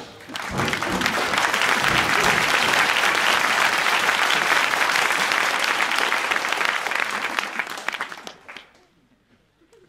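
An audience applauding, building up within the first second, holding steady, then dying away about eight seconds in.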